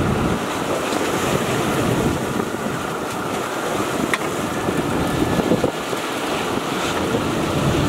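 Steady wind blowing across the microphone, with waves washing against a boat's hull.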